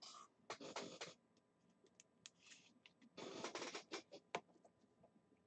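Faint rustling and scraping of trading cards and a plastic card sleeve being handled, in a few short scrapes with some light clicks.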